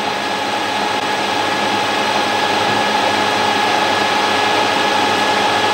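Harrison M300 metal lathe running under power feed, taking a 4 mm deep cut in a mild steel shaft with an indexable insert tool. It makes a steady machine whir with a constant high tone, growing slightly louder through the cut.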